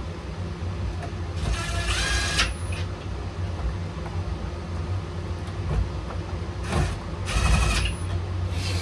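Two short bursts of tool noise, each about a second long, while nuts on the carburettor and airbox housing are tightened. A steady low hum runs underneath.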